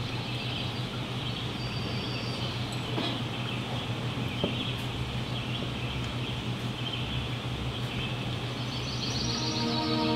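Ambient forest soundscape with faint bird chirps over a steady low hum and hiss, with one faint tap about halfway through. Music begins just before the end.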